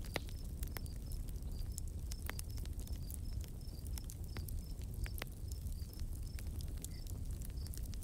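Nature-sounds ambience: a steady low rumble with scattered light clicks and pattering, and a short high chirp repeating steadily about two to three times a second.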